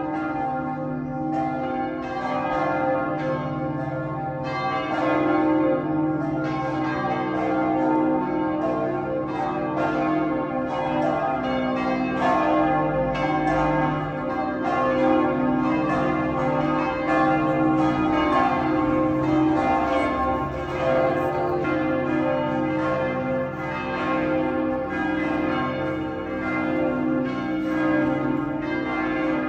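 Church bells pealing together: many bells struck in quick, overlapping succession, their tones ringing on over one another without a break.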